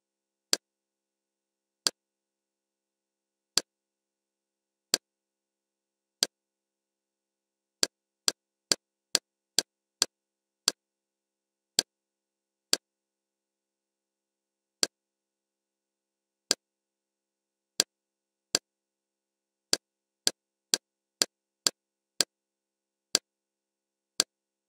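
Kodi menu navigation clicks, one sharp interface click per step while scrolling through the movie tiles. About two dozen come at uneven spacing, with quick runs of two or three a second around the middle and near the end, and silence between them.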